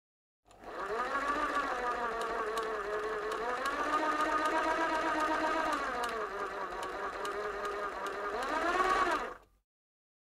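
Industrial sewing machine running, its motor pitch dipping and rising as the speed changes; it starts about half a second in and cuts off abruptly near the end.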